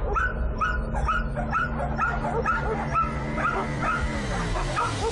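A dog yipping and whimpering in short, high cries, about two a second, over a steady low drone.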